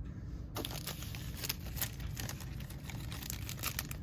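Crinkling and rustling of foil trading-card pack wrappers and cards being handled, with many small quick clicks.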